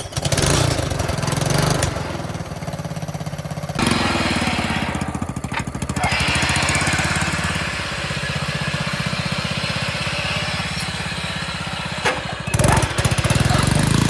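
Riding lawn mower's small engine starting and running loud with a fast, even firing beat; its speed shifts a few times and it dips briefly near the end before picking up again.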